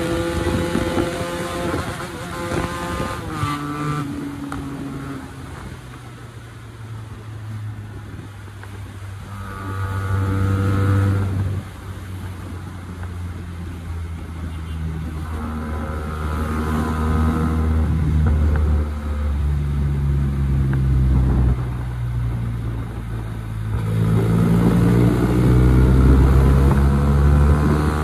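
Motorcycle engine through a temporary raw exhaust, accelerating and rolling off in traffic. The note climbs in pitch several times and drops sharply at each gear change or throttle close, with one sudden cut about halfway through.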